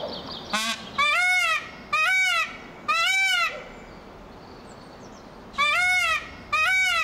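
Peacock (male Indian peafowl) calling loudly. A brief rising call comes first, then three arched, wailing calls about a second apart, a pause of about two seconds, and two more calls.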